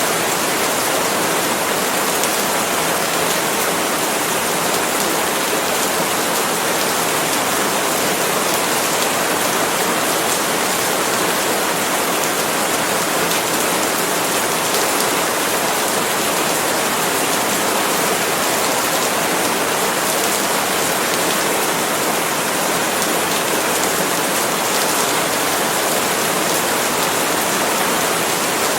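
Steady, heavy rain: a dense, even hiss of countless drops, with no single drop or other event standing out.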